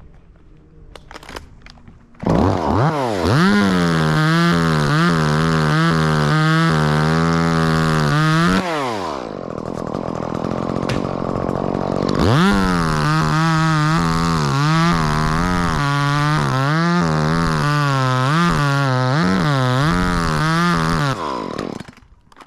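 Chainsaw cutting limbs of a sweetgum (liquidambar) tree, its engine at full throttle with the pitch dipping and wavering under load. It drops back toward idle for a few seconds midway, revs up and cuts again for about nine seconds, then stops near the end.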